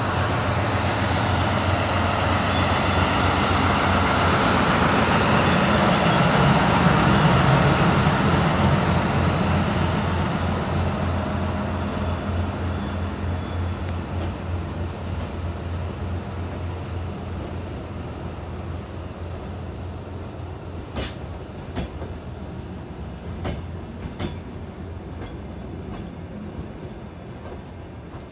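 DR1A diesel multiple unit pulling away from a station: its diesel engine runs loud with a steady pulsing rumble as the head car passes, then fades as the trailer cars roll by. Near the end the wheels click a few times over rail joints.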